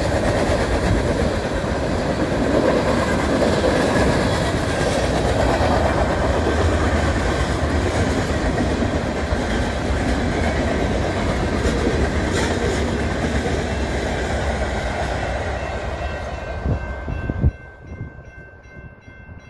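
Freight train of tank cars rolling past: a steady rumble with the clatter of wheels over the rail joints. It cuts off abruptly near the end, leaving a much quieter background.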